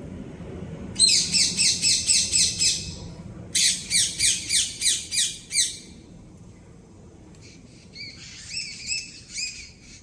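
A bird calling in runs of rapid, evenly repeated high-pitched notes, about five a second. There are two loud runs of about two seconds each, then a fainter, shorter run near the end.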